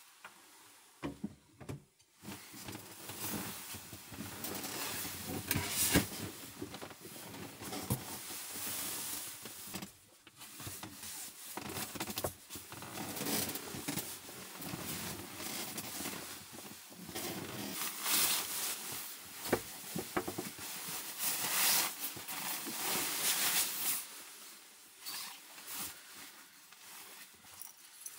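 A sleeping bag and blanket rustling as they are handled and spread out, in uneven bursts of fabric rustle with small knocks and clicks.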